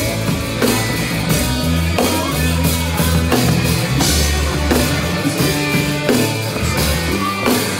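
Live rock band playing, with an electric bass holding low notes that change every half-second or so over a steady drum-kit beat and guitar.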